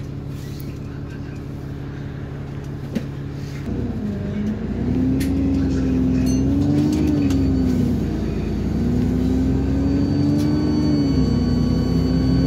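Alexander Dennis Enviro 400 double-decker bus engine heard from inside the passenger saloon, idling steadily, then pulling away about four seconds in. The engine note rises, drops at a gear change about eight seconds in, rises again and drops at another change near the end.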